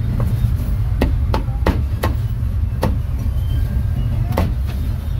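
Meat being chopped with a cleaver: about eight sharp, irregularly spaced strokes over a steady low rumble.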